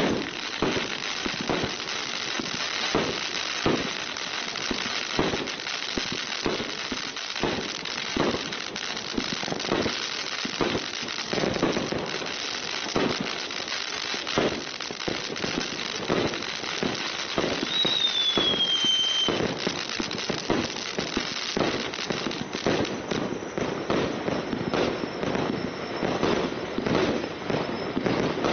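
A 200-shot consumer fireworks battery (cake) firing in a rapid, unbroken run of shots and bursting effects, with no gap between them. About two-thirds of the way through, a short whistle falls in pitch.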